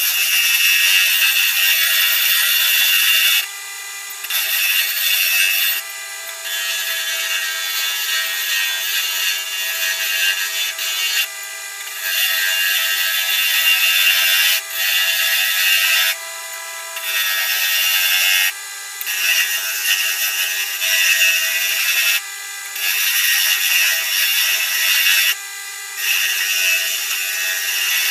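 Turning tool cutting a celery wood pen blank spinning on a wood lathe, a steady scraping hiss in stretches of a few seconds that drops away briefly each time the tool eases off the wood.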